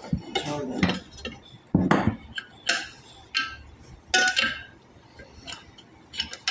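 Metal tools and parts clinking and knocking against each other in irregular strikes, some with a short metallic ring, during work on a truck brake servo and master cylinder.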